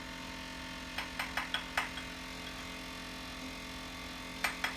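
Kitchen utensils clinking: five quick light clicks about a second in, then three more near the end, over a steady electrical hum.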